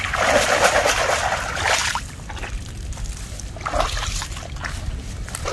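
Water splashing and streaming off a bamboo cylinder trap as it is pulled out of shallow muddy water, lasting about two seconds, then dying down to a few light crackles and rustles.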